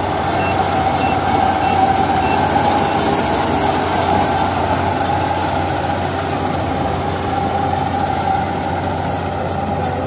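Kubota PRO 588i-G crawler combine harvester running steadily as it cuts ripe rice, its diesel engine and threshing machinery making a continuous drone. A faint short high pip repeats about every half second during the first couple of seconds.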